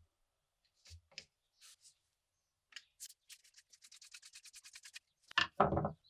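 A screwdriver tip working in a grip screw of a 1950s cast-metal cap gun revolver: a rapid scratchy scraping of about ten strokes a second, after a few light clicks. Near the end comes one heavier knock, the loudest sound.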